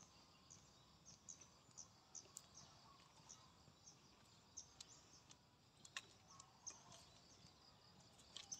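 Quiet field ambience with faint, short, high-pitched chirping repeating irregularly, and a few soft sharp clicks.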